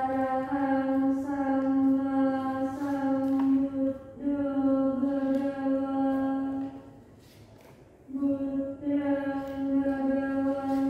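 A woman chanting Buddhist Pali paritta, held on one steady pitch in long phrases, with a brief break about four seconds in and a pause for breath about seven seconds in.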